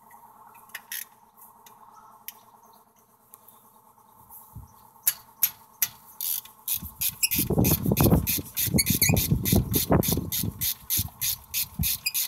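Hand ratchet clicking steadily, about three to four clicks a second, as a hex-bit socket backs a brake caliper slide bolt out, starting about five seconds in. A louder low rubbing rumble runs under the clicking for a few seconds in the middle.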